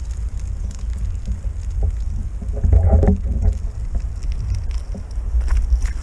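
Low rumble of wind on the microphone, with scattered clicks and knocks, briefly louder about three seconds in.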